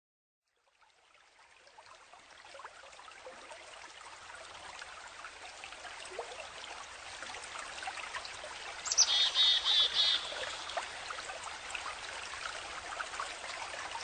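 Nature ambience fading in: a stream trickling steadily, with scattered faint bird chirps. About nine seconds in, a bird sings one short, rapid trilling phrase lasting about a second.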